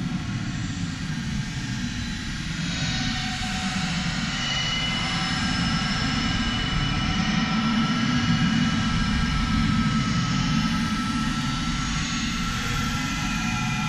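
Dark space ambient music: a steady low drone with thin held high tones drifting above it, growing a little louder toward the middle.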